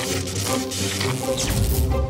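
Cartoon film score playing, with several short sharp sound-effect hits over it and a low rumble swelling near the end.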